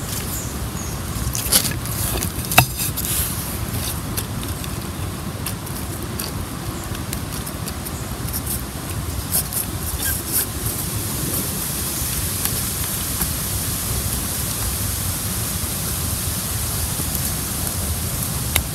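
Steady outdoor hiss, with a few light knocks from a wooden stick working softened polymorph plastic in a metal pot of hot water, mostly in the first few seconds and again about ten seconds in.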